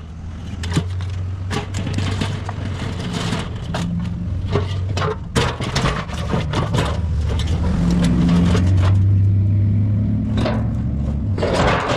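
A vehicle's engine running steadily, swelling louder a few seconds before the end, with frequent sharp knocks and rattles over it.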